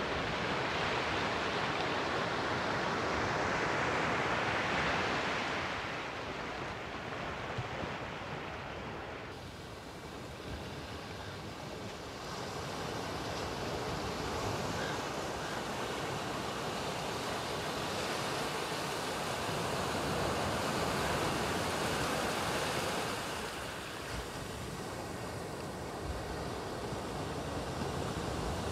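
Pacific Ocean surf: small waves breaking and foam washing up over a sand beach, a steady hiss that swells and ebbs, loudest a few seconds in and again past the middle.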